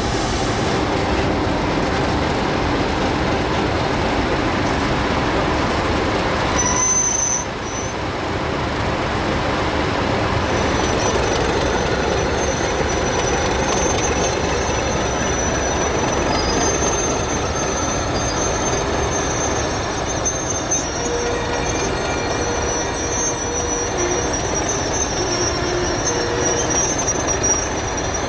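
English Electric-built diesel-electric locomotives running with their train, a continuous rumble with the steel wheels squealing on the rails in thin, high, steady whines, briefly just before seven seconds and then through most of the rest.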